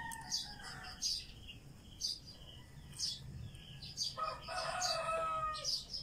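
A rooster crowing, one crow trailing off about a second in and a second long crow starting about four seconds in, with small birds chirping about once a second throughout.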